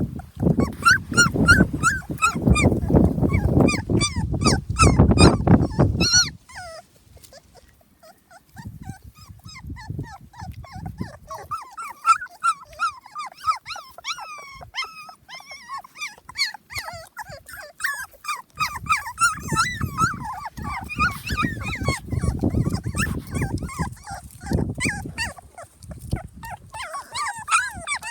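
A litter of young puppies whimpering and squealing, many short high-pitched squeaks overlapping throughout. A loud low rumbling noise runs under them for the first six seconds and again for several seconds in the second half.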